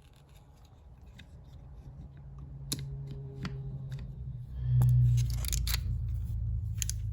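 Small metal clicks and scrapes of a Jennings J-22 pistol's parts being fitted back together by hand while its spring is refitted, a few sharp clicks over a low handling rumble, loudest just before the middle.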